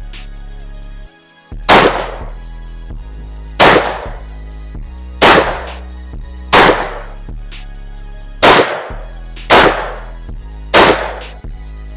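Seven semi-automatic rifle shots from an 11.5-inch short-barrelled AR-15, fired one at a time about one to two seconds apart, each very loud with a ringing tail. Background music with a steady beat plays underneath.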